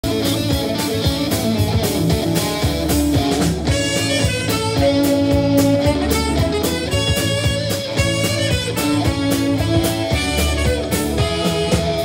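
Live band playing: saxophone holding long notes over a steady drum beat and electric bass.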